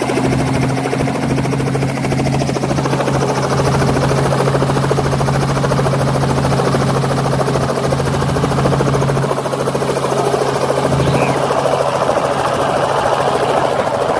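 Light helicopter running on the ground: a steady engine hum under the rapid, even chop of the turning rotor blades.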